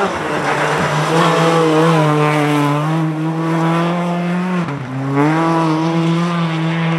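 Rally car engine at high revs as the car approaches and passes close by, the pitch sweeping as it goes. About four and a half seconds in the revs drop briefly, then climb again as it pulls away.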